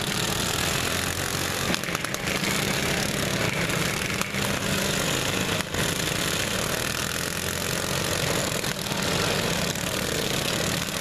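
Several riding lawn mower engines running at once in a steady, continuous drone.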